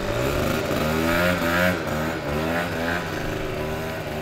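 Small motor scooter engine revving as the scooter pulls away, its pitch rising and falling with the throttle and getting a little quieter near the end as it rides off.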